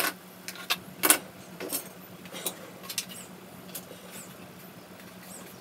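Light, irregular clicks and taps of a wooden model boat hull being picked up and handled, mostly in the first few seconds, over a faint steady hum.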